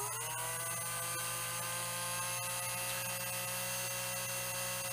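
AEG/Panasonic-style cordless screwdriver's small electric motor running with no load on a 3-volt bench supply: a high steady whine that finishes rising to full speed in the first moment, then holds even.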